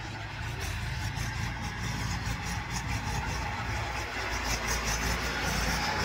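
Swaraj 843 XM tractor's three-cylinder diesel engine running steadily as it tows a loaded trolley of mud, growing louder as it draws near.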